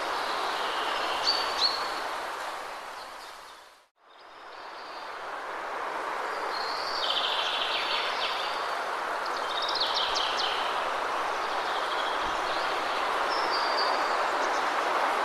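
Steady rush of a waterfall with small birds chirping and trilling over it. The sound fades down to silence about four seconds in and fades back up, as at the join of a looped recording.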